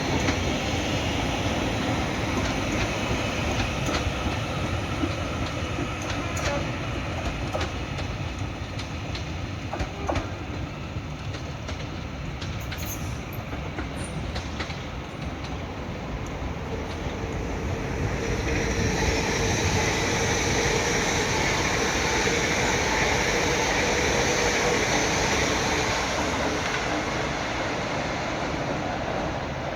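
A train moving on the rails, its wheels clicking over rail joints. About two-thirds of the way through it grows louder, with a high hiss and squeal from the wheels.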